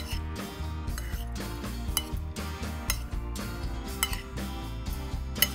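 Background music with a steady beat, over a metal spoon and fork clinking against a plate as noodles are tossed; a few sharp clinks, the loudest near the end.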